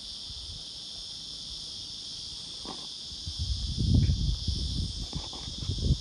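Green grocer cicadas buzzing in the trees, one steady, unbroken high-pitched drone. Bursts of low rumble on the microphone come in about halfway through and again near the end, briefly louder than the buzz.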